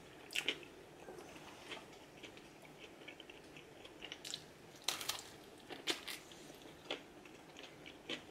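A person chewing a mouthful of cheeseburger with lettuce, tomato and pickles, close to the microphone: faint, irregular wet smacks and small clicks.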